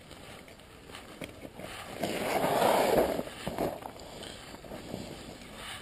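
Rustling and handling noise as fishing gear is picked up from a tackle bag, louder for about a second two seconds in, with a few light clicks after.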